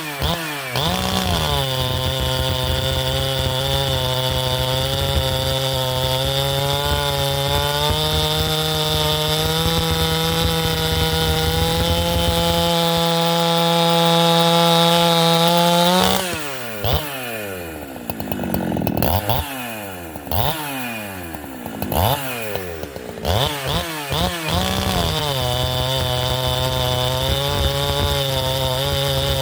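Holzfforma G372 two-stroke chainsaw with a 28-inch bar, held at full throttle and cutting through green red oak. About halfway through, the revs drop off and the throttle is blipped several times. Near the end the saw goes back to steady full revs.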